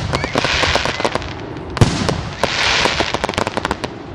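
Fireworks shells bursting overhead: a loud bang a little under two seconds in, with dense crackling after each burst.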